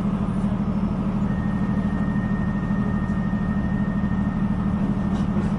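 Diesel multiple-unit train engine running with a steady low drone, heard from inside the carriage. A faint thin high tone sounds through the middle of it.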